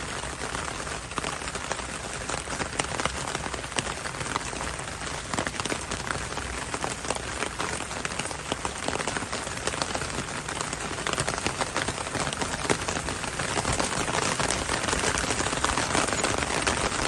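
Steady rain with many individual drops tapping on a window pane, a dense patter that grows a little louder near the end.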